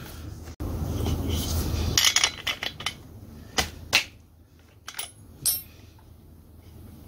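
Handling noise, then a scatter of sharp metallic clicks and clinks from a tool and loose parts at the carburetor of a STIHL MS180C chainsaw during disassembly.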